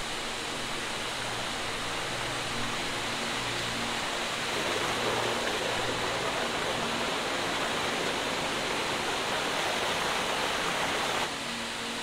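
Shallow forest stream rushing over rocks, a steady watery rush that grows louder about a third of the way in and drops off abruptly near the end.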